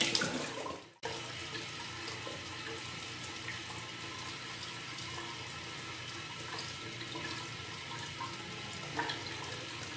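Water splashing onto a face at a bathroom sink for about a second, cut off suddenly. Then a steady hiss of a running tap.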